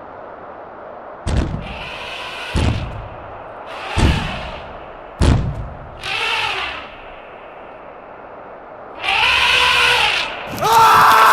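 Four heavy thumps about a second and a half apart, each followed by a short pitched cry. A louder, longer cry follows, then music starts near the end.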